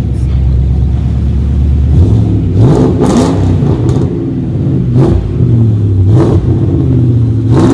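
A 2005 Mustang GT's 4.6-litre V8 running through newly fitted long-tube headers and a catted H-pipe: a steady, deep idle at first, then revved in short throttle blips a few times, the pitch rising and falling with each.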